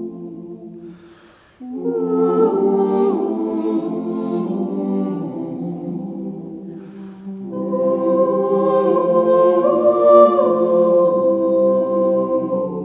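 Choir singing a slow song in held chords, with a brief pause about a second and a half in and a louder swell from about eight seconds in.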